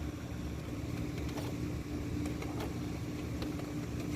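Steady low mechanical hum with a held tone, joined by a few faint clicks.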